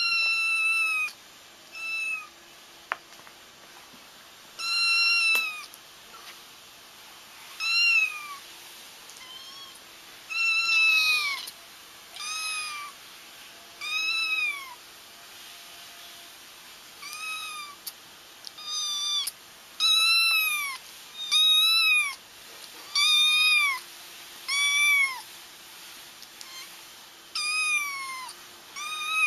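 Kittens crying: high, thin meows repeated about twenty times, one every second or two, each call rising and then falling in pitch.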